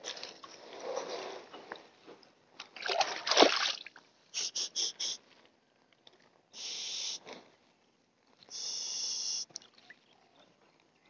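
Water splashing and sloshing as a peacock bass, held by a lip-grip tool, thrashes in shallow water at the river's edge, loudest about three seconds in. Several short, high hiss-like bursts follow in the second half.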